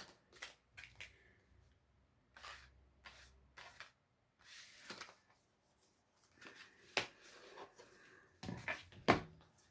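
Rustling and scattered clicks and taps as a parcel's packaging is handled and opened, with a sharper knock about seven seconds in and a louder one near nine seconds.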